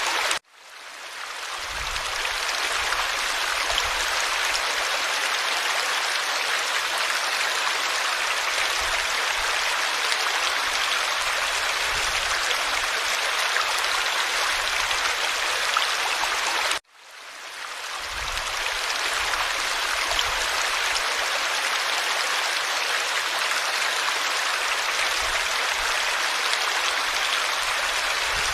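Forest stream flowing, a steady rushing and babbling of water. The sound cuts out abruptly about half a second in and again about halfway through, each time fading back up over a couple of seconds.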